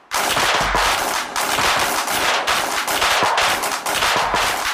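A 500-count firecracker strip (World Class Class Crackers) going off, a fast unbroken string of sharp cracks.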